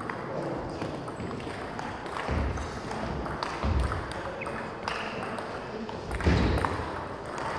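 Table tennis rally: the ball clicks back and forth off the rackets and the table, with a few low thuds in between.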